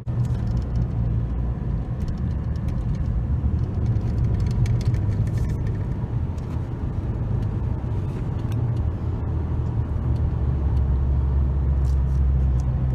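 A car driving on a paved road, heard from inside the cabin: a steady low rumble of engine and road noise.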